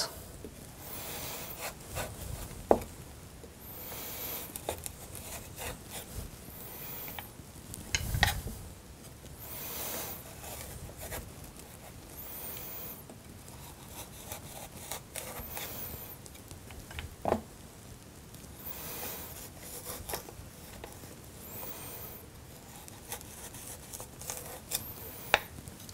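A sharp kitchen knife drawn lengthwise along a raw carrot in a series of scraping strokes every couple of seconds, cutting V-shaped grooves down its length. A few sharp knocks of the knife or carrot against the wooden cutting board come in between, the loudest near the start.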